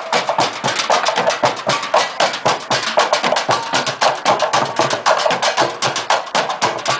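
Street percussion band beating recycled plastic barrels, buckets and jugs with sticks: a fast, steady, dense rhythm of hollow knocks from many players at once.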